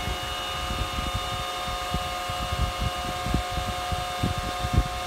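Antminer S9 Bitcoin miner's 120 mm cooling fans running at full speed, a steady whine with several held tones, pushing almost 2,000 feet per minute. The fan's exhaust air buffets the microphone in irregular low gusts.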